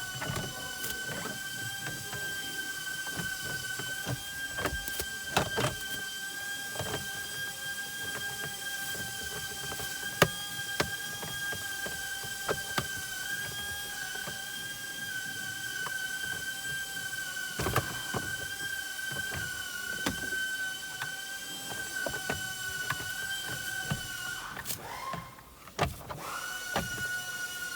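A steady high-pitched mechanical whine holds one pitch, cuts out briefly near the end and rises back to the same pitch. Scattered clicks and knocks of trim and parts being fitted back around the steering column sound over it.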